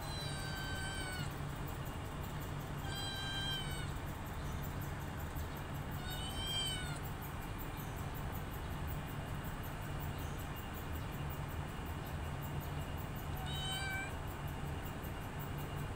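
Domestic cat meowing about five times, each call about a second long or shorter, some falling in pitch at the end, with a long pause in the middle; the last call is faint. A steady low hum runs underneath.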